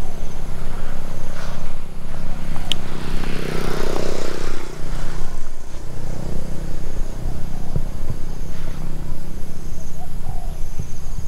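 Small four-stroke petrol lawn mower engine running steadily, with a single sharp tick about a third of the way in.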